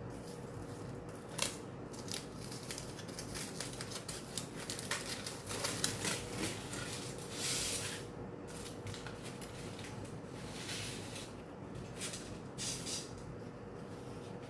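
Scattered clicks and short rustles from food containers and utensils being handled, over a faint steady hum.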